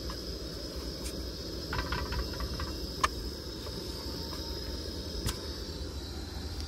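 Steady hiss of a small burner on a gas cylinder heating a tawa, with a few light taps and clicks as rotis are rolled out and turned; the sharpest click comes about three seconds in.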